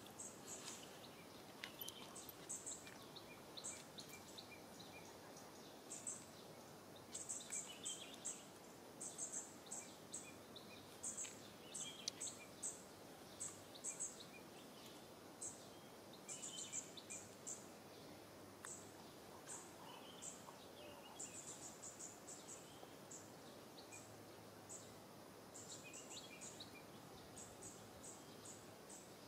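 Faint outdoor ambience: a steady low hiss with runs of short, very high chirps repeating every second or so.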